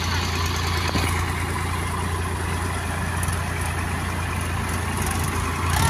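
Diesel farm tractor engines running steadily under load as the tractors pull a stuck trolley, a deep constant engine hum.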